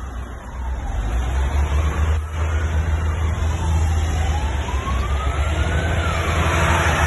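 Heavy military tank-transporter trucks rumbling past, with a siren wailing slowly up and down over them, each rise and fall taking about two to three seconds. The truck rumble grows louder about a second in.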